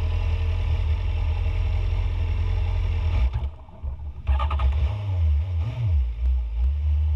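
BMW S1000RR inline-four engine idling at a standstill, a steady low rumble. About three and a half seconds in it briefly drops away, followed by a short clatter, then the idle settles again.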